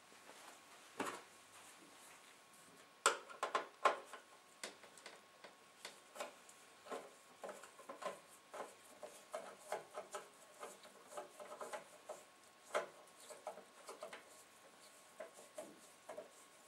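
Small screwdriver undoing screws in a CD player's metal chassis: irregular faint clicks and scrapes of the bit in the screw heads, with the odd louder tap about three seconds in and again near the end.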